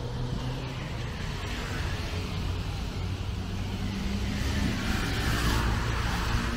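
City road traffic: cars and motorbikes running and passing close by, a steady low engine hum under tyre and engine noise that swells as vehicles go past, a little louder near the end.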